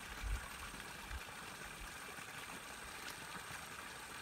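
Faint steady outdoor background hiss, with two brief low bumps in the first second or so.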